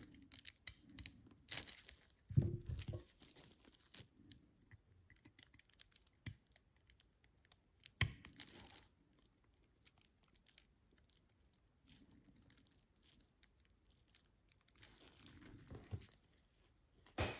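Faint handling sounds of a watch movement being seated in its case: scattered small clicks and rustles of metal parts and tools, with one sharper click about eight seconds in.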